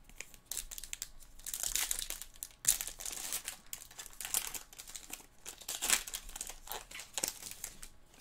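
A Topps Chrome trading card pack's wrapper being torn open and crumpled by hand, a run of crinkling rustles, loudest about a third of the way in and again near the three-quarter mark.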